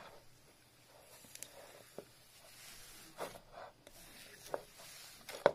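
Hands squishing slime into a bowl of loose microbeads: a soft rustle of shifting beads with irregular small crackles and squishy pops, the loudest pop near the end.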